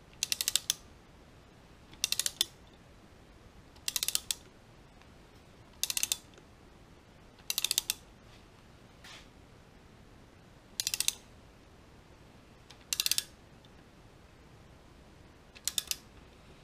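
Ratchet wrench clicking in eight short, quick runs, about two seconds apart, as its handle is swung back and forth tightening a rocker arm bolt on an LS engine's cylinder head.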